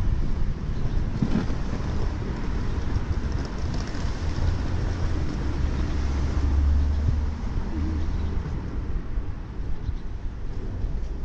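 Outdoor street noise: a steady low rumble that swells for a few seconds in the middle.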